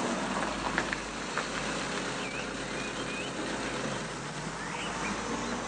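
A steady rushing noise with a few short bird chirps above it.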